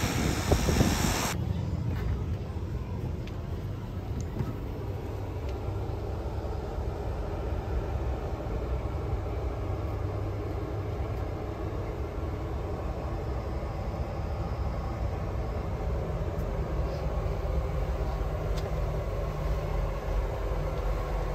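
For about the first second, the turboprops of a taxiing Beechcraft King Air 260 are heard with wind on the microphone. The sound then cuts off suddenly and gives way to a steady low rumble with a faint hum and no high sounds.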